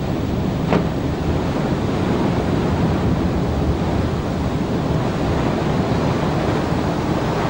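Water surging and churning as a steel ship hull block slides down the slipway into the river, with heavy spray and waves. There is a short sharp crack about a second in.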